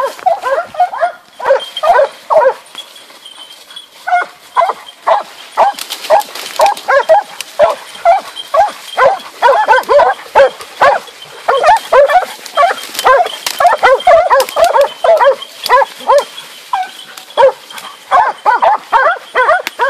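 Hunting dogs barking rapidly and without let-up, baying at a wounded wild boar, with a brief lull near the start.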